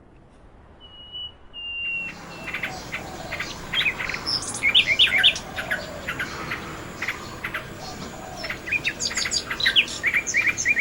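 Common nightingale singing: a faint held whistle, then from about two seconds in a fast run of short, varied chirps and trills.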